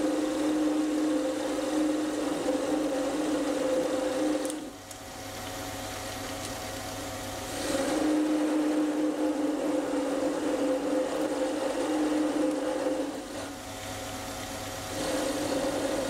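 Sieg C3 mini lathe running through a test cut in mild steel with a freshly ground high-speed-steel tool: a steady machine hum with a whine, louder in three long stretches and dropping back to quieter running about 4.5 s in and again about 13 s in.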